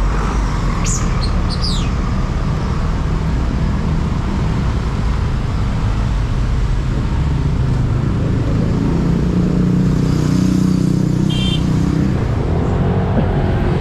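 Motorcycle engine running and road and traffic noise while riding slowly through congested traffic. There are a couple of brief high squeals about a second in, and a short run of rapid high beeps near the end.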